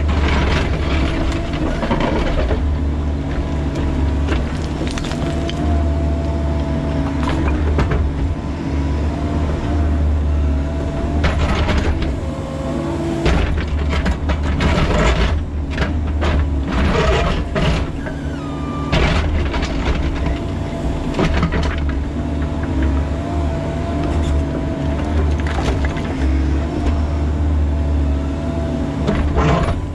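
Bobcat E45 mini excavator's diesel engine running steadily under hydraulic load, heard from the cab. Over it, the bucket scrapes and knocks against rock and stone in the trench, in repeated short clatters that are thickest in the middle stretch.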